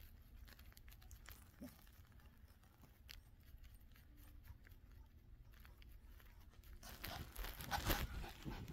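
Faint rustling and small clicks as a small long-haired dog plays with a hand, mouthing and nibbling it on a bed; shortly before the end the rustling of fur and bedding grows louder in a few quick bursts as the dog scrambles about on the covers.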